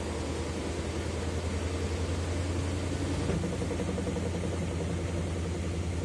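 Consul CWE13AB 13 kg top-load washing machine spinning its laundry basket: a steady low motor hum.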